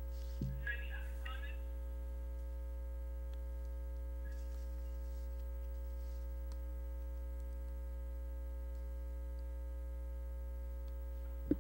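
Steady electrical mains hum with a stack of faint steady buzzing tones on the microphone line. A soft bump and a brief rustle about a second in.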